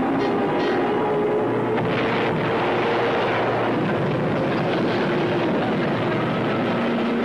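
Steady aircraft engine drone.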